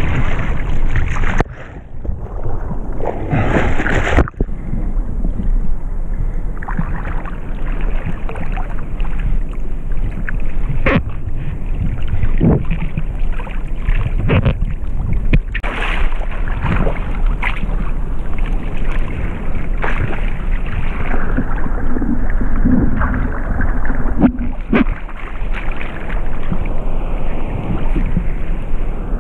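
Seawater sloshing and slapping against a surfboard and a GoPro camera at the water's surface, with many short splashes and wind on the microphone. The sound goes briefly muffled about a second and a half in.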